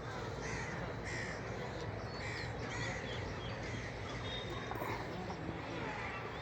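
Birds calling, a string of short, harsh repeated calls about one a second, over a steady background hum.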